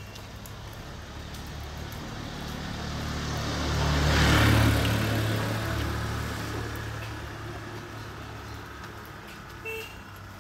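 A motor vehicle drives past close by: its engine and tyre noise swell to a peak about four and a half seconds in, then fade away as it recedes.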